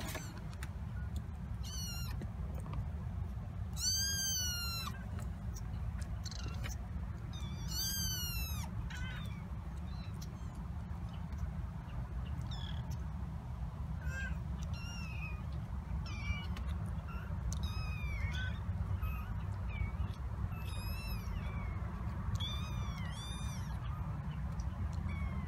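Four-week-old kittens mewing repeatedly, in short high-pitched cries that rise and fall. The cries come more often and overlap in the second half, over a steady low rumble.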